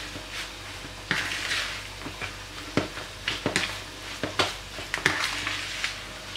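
A fork mixing raw beef mince with egg and seasoning in a bowl: wet mashing and scraping, with irregular clicks of the fork against the bowl.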